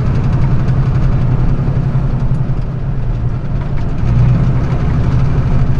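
Flatbed straight truck's engine running under way, heard from inside the cab with road noise. The sound dips briefly about three seconds in, and from about four seconds in the engine runs on at a lower note.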